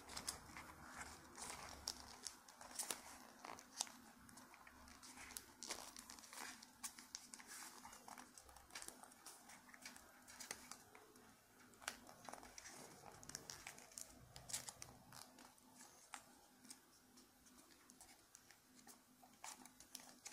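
Pink origami paper being folded and creased by hand: quiet, irregular crinkling with sharp little crackles as the folds are pressed.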